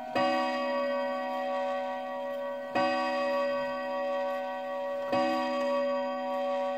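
English dual-chime mantel clock striking: three strokes of the same deep, ringing note about two and a half seconds apart, each ringing on into the next.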